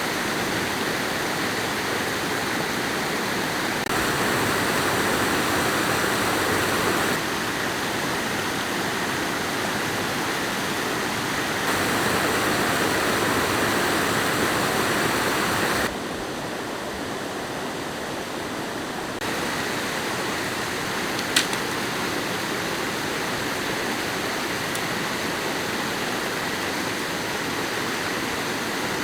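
Steady rushing water, like a stream or an outflow, with the level jumping up and down a few times as shots change and one sharp click about two-thirds of the way through.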